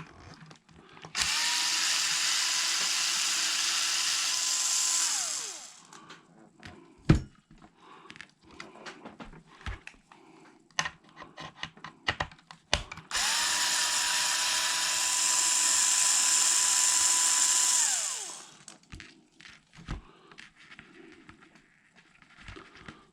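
Electric screwdriver fitted with a 2.0 mm hex bit backing out small screws, running twice for about five seconds each. Each run holds a steady whine that winds down as it stops. Clicks and knocks of small parts and tools being handled come between the runs, the sharpest about seven seconds in.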